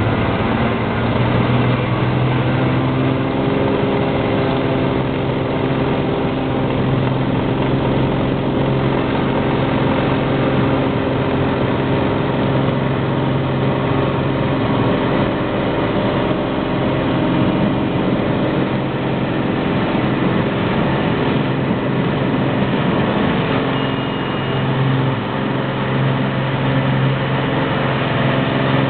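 Cessna Turbo 206's piston engine and propeller running steadily at low power, heard from inside the cabin while the plane taxis along a dirt airstrip. The pitch and loudness hold nearly constant, with no climb to full takeoff power.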